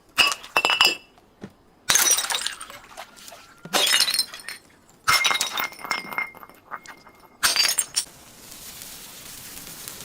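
Glass bottles smashing, about six crashes, each followed by tinkling shards of glass; a steady hiss fills the last two seconds.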